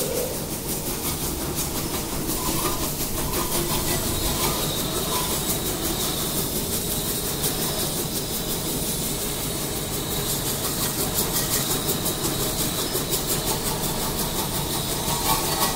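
Pressure washer jet spraying water onto a removed car rear axle beam and the wet concrete under it: a steady hissing spray with a fast, even pulsing from the pump.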